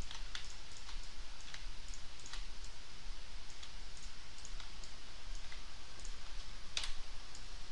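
Irregular clicks of a computer mouse, about ten scattered over a few seconds with the loudest near the end, over a steady low hiss and hum from the recording microphone.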